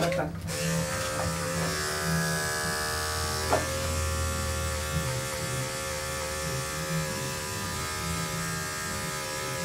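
Electric dog grooming clippers running steadily, shaving through a heavily matted poodle coat. The buzz starts about half a second in and holds an even pitch.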